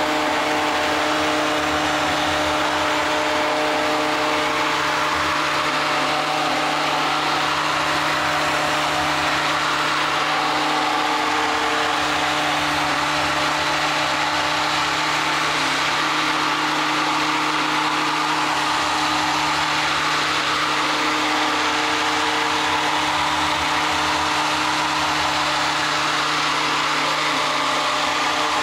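Electric immersion (stick) blender running steadily in a pot of thick tomato and roasted red pepper soup, its blades pureeing the soup to a smooth consistency. The motor hums at one steady pitch, with the churning of the soup over it.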